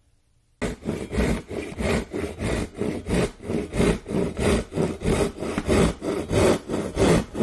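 Japanese-style pull saw crosscutting a half-inch pine board by hand, starting about half a second in and going on in quick, even strokes, about three a second.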